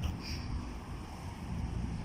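Outdoor ambience: low wind rumble on the microphone with a faint traffic hum underneath, slightly quieter than just before.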